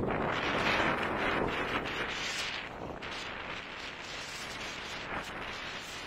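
Strong dust-storm wind blowing hard around a moving vehicle, with a dense crackling patter of grit and drops striking it, loudest at first and gradually easing.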